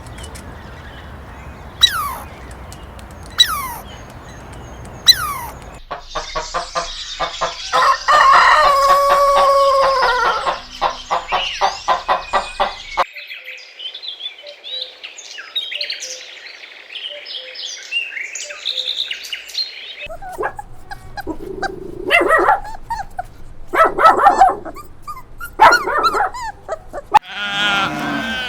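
A run of animal calls cut one after another. First come four sharp calls falling in pitch, about a second and a half apart. Then a rooster crows, a stretch of high chirping follows, and dog barks repeat in the last seconds.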